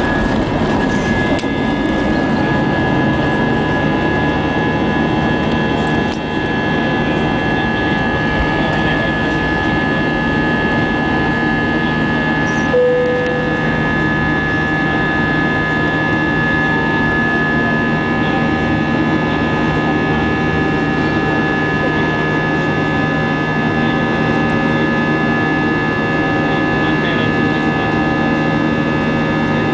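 Airbus A320 cabin noise in the climb after takeoff: a steady rush of engine and airflow noise, carrying several steady hum tones. A short tone sounds about halfway through.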